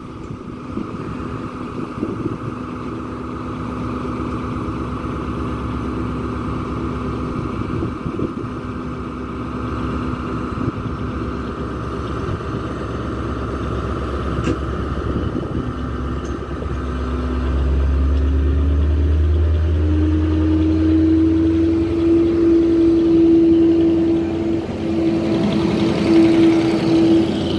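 Class 73 electro-diesel locomotives running on their diesel engines: a steady running note for most of the time, then about two-thirds of the way through the engine revs up with a rising note and grows louder as the train pulls away under power.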